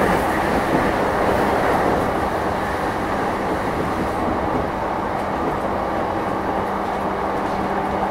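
JR East E233 series electric train heard from inside, running along the line: a steady rumble of wheels on track with a constant low hum.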